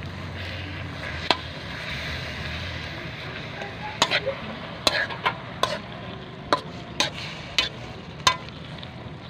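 A spatula stirring chopped meat and aromatics in a large metal wok over a low, steady sizzle. The spatula scrapes the pan and knocks sharply against it at irregular moments, more often in the second half.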